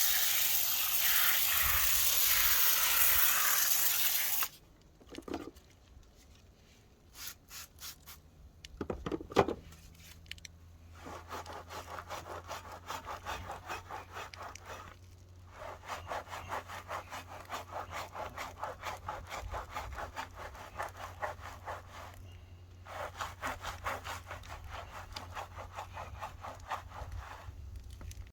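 Water spray hissing that cuts off early, then a few knocks. After that comes steady rhythmic back-and-forth scrubbing on the car, with two short pauses, as it is hand-washed.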